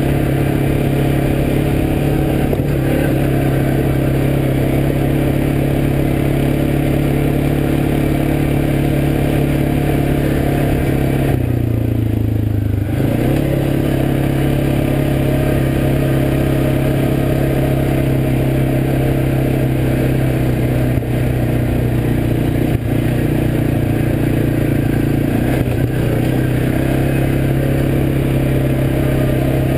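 ATV engine running steadily under way. It drops briefly in pitch about twelve seconds in, then picks back up.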